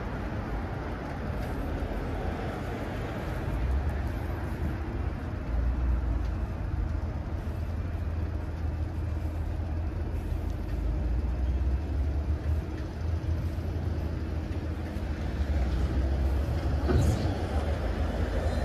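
City street traffic: cars and buses going by, a steady noisy wash over a low rumble, with one brief sharper sound near the end.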